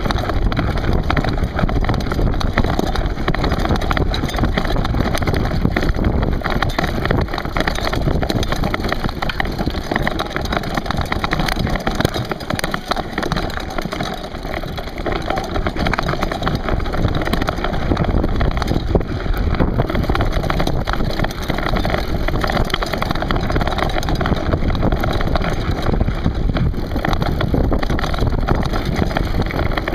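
Mountain bike riding over a rocky, gravelly trail: a steady rumble and rattle of tyres and bike over stones, with wind on the microphone.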